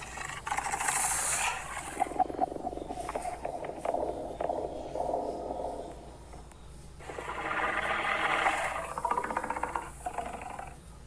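Home-made creature sound effects: a series of noisy growl- and hiss-like calls, the loudest from about seven to nine seconds in.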